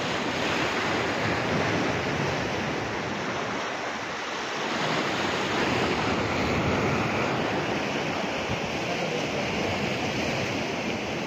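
Sea surf washing on the shore: a steady rushing noise that swells and eases slowly.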